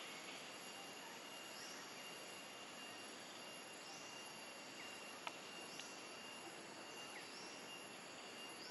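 Faint outdoor background of steady insect drone, with a short high chirp repeating every second or two and a single brief click about halfway through.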